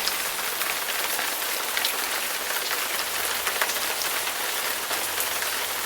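Steady rain pattering, a dense hiss of fine drop clicks that begins to fade near the end.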